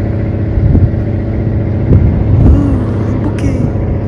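A vehicle engine running with a steady low drone and rumble.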